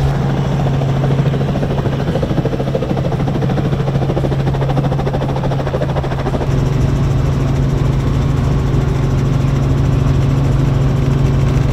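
Robinson R44 helicopter running, its engine and rotor making a loud, steady low hum of constant pitch. The sound changes in character about two-thirds of the way through.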